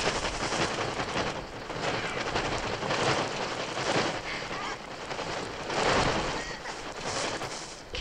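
Film soundtrack of a bird attack: a dense flurry of wing flapping and shrill electronic bird screeching that swells and ebbs in waves.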